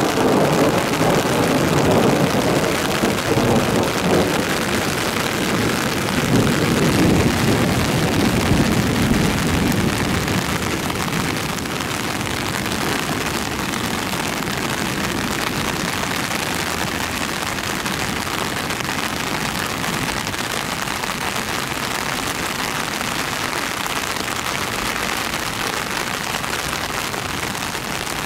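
Heavy rain falling steadily, with a low roll of thunder through roughly the first ten seconds that dies away.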